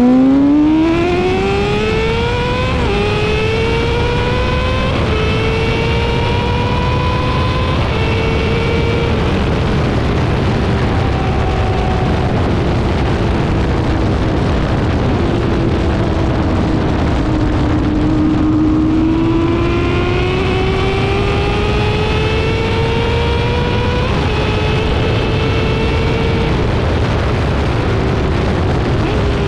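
2019 Yamaha R6's inline-four running through an M4 Street Slayer exhaust with the muffler box deleted, accelerating through the gears with three quick upshifts in the first eight seconds. It settles, drops off in pitch around the middle as the rider eases off, then pulls up again with two more upshifts near the end, over steady wind and road noise.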